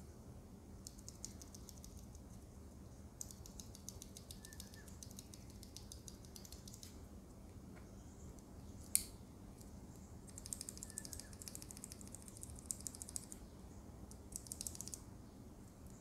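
Loose Gateron KS3 black mechanical keyboard switch worked between the fingers, giving faint runs of quick clicks in several bursts, with one louder single click about nine seconds in.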